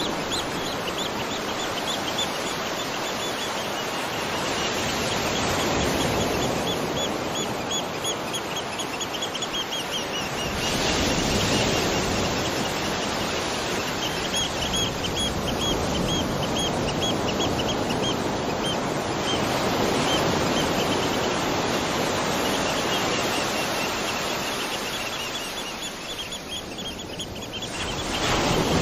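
Waterfall rushing steadily, with several runs of quick, repeated high chirps over it, a few each second.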